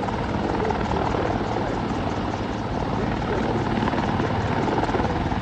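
Helicopter flying overhead, its rotor blades giving a steady, fast beating chop.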